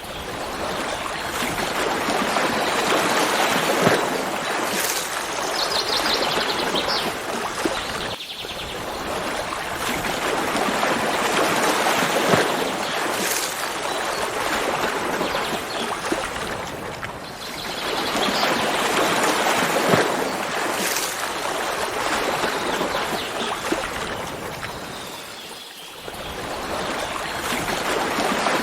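Stream of running water flowing steadily, its level swelling and easing every several seconds and dipping briefly twice. A few faint bird calls sound over it, about five seconds in and again near eighteen seconds.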